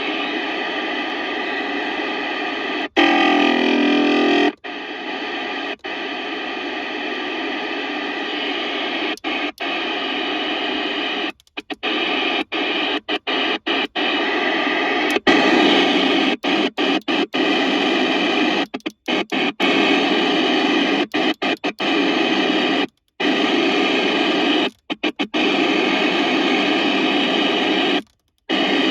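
FM CB radio receiver hissing with static on the 27 MHz UK FM CB band, no voice coming through, cut by many short, sudden silences. A louder, denser burst of noise comes about three seconds in and lasts a second and a half.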